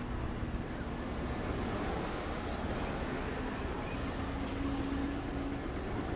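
Steady wind and harbour water noise with a low rumble from a two-masted schooner motoring past with its sails furled. A faint hum comes and goes around the middle of the clip.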